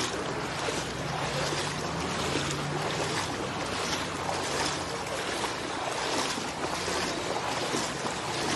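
Steady rushing, hissing noise of water on a flooded street.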